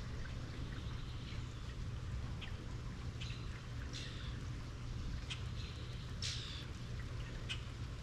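Steady rain falling, with birds giving short chirps every second or so, several of them falling in pitch. A steady low rumble runs underneath.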